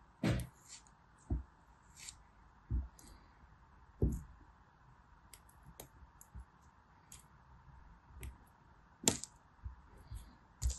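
Kinetic sand being cut and broken apart with scissors and a small blade, close-miked: an irregular string of crunchy snips and soft thuds, the strongest about a third of a second in, about four seconds in and about nine seconds in.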